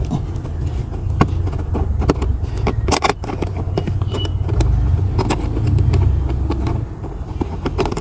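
Small clicks, taps and rattles of a hand tool and plastic trim as a car's centre console is unfastened, over a steady low rumble.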